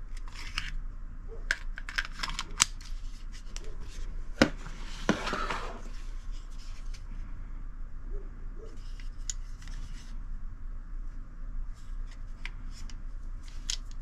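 Sharp metallic clicks and clacks of a compact semi-automatic pistol being handled and its slide worked, with a longer sliding scrape about five seconds in and another cluster of clicks near the end.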